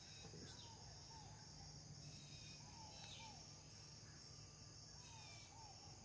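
Near silence: faint outdoor ambience of a steady high insect drone, with faint short bird chirps coming in pairs about every two seconds.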